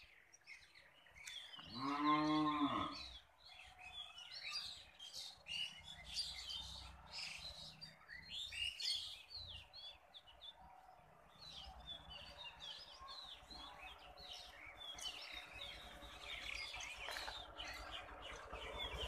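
A cow mooing once about two seconds in, one long call that rises and then falls in pitch, with small birds chirping on and off for the rest of the time.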